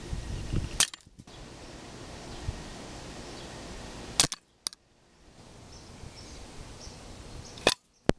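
Homemade spring-loaded airsoft tripwire mine going off three times: a sharp snap as the spring-driven wooden arm is released and flings its tray of BBs. The snaps come about three and a half seconds apart.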